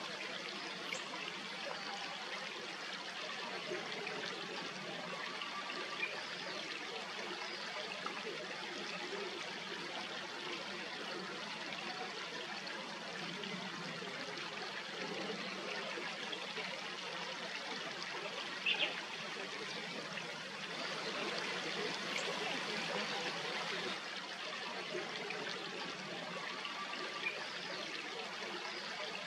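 Steady rushing of running water, like a stream, with a brief louder sound about two-thirds of the way through.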